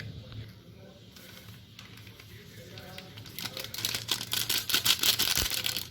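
A spice packet crinkling and rustling in the hands as it is opened and emptied, in a run of quick crackles that starts about halfway through and goes on almost to the end.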